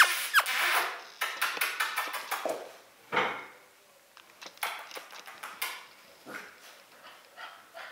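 Six-week-old golden retriever puppies squealing briefly near the start, amid many quick clicks and rattling clatter that grow fainter after about three seconds.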